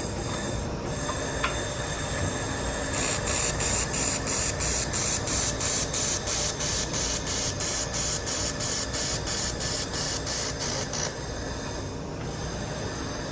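IPG LightWELD XR handheld laser welder in pulse mode, welding thin sheet metal. About three seconds in, a run of evenly spaced hissing pulses starts, about three a second, at the welder's pulse setting of 3 pulses a second at 800 W. It goes on for about eight seconds over a steady hiss.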